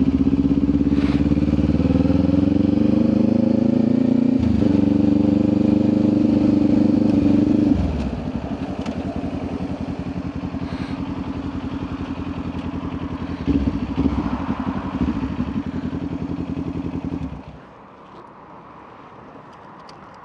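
Motorcycle engine under way: the revs climb, drop with a gear change about four seconds in and hold, then the throttle closes near eight seconds and the engine runs lower while the bike slows, with a brief blip around fourteen seconds. The engine goes quiet about seventeen seconds in.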